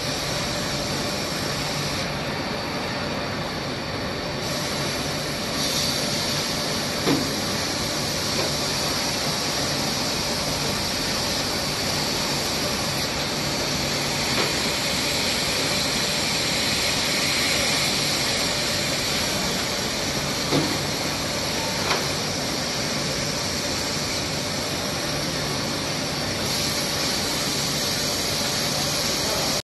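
Steady hiss and hum of machinery in an automated robotic production cell, with a few short, sharp clicks and clacks from the equipment, the clearest about 7, 20 and 22 seconds in.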